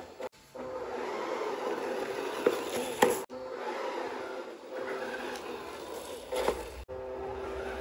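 Electric motor and gears of a scale RC Range Rover Sport whining steadily as it drives through sand, with tyres scraping and a few sharp knocks. The sound breaks off abruptly for an instant three times.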